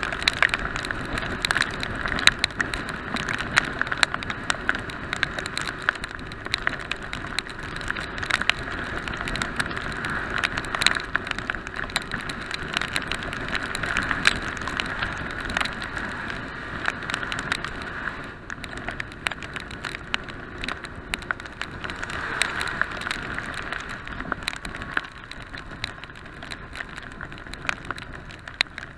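Heavy rain: raindrops ticking irregularly against the action camera's waterproof housing, over the steady wind and road noise of a motorcycle riding on a wet road. It eases slightly past the middle.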